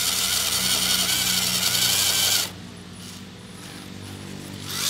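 RC scale crawler's electric motor and geared drivetrain whirring under load as the truck climbs a steep slope. It cuts back sharply about two and a half seconds in to a quieter low hum, with a brief swell near the end.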